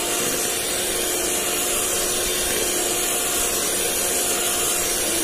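Electric hand mixer running steadily with a constant motor whine, its beaters whipping cream in a plastic bowl towards stiff peaks.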